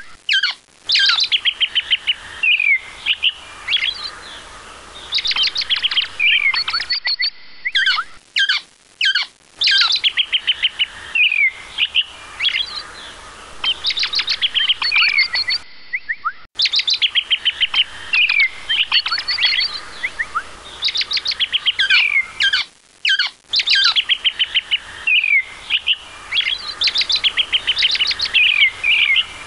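Songbird singing: loud, repeated phrases of rapid trills and short down-slurred whistles, with brief pauses between them.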